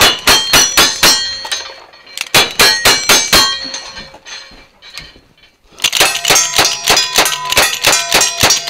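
Quick strings of gunshots at steel plate targets, each hit ringing the steel: two short strings of single-action revolver shots with a pause between them, then a faster run of lever-action rifle shots that starts near the end.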